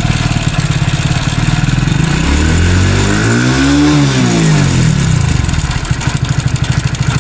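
Hero Splendor Plus BS6 motorcycle's single-cylinder four-stroke engine idling with a fast, even pulse, blipped once in the middle so the revs rise and fall back to idle. It is running with a timing-chain noise that the mechanic puts down to a loose, worn timing chain.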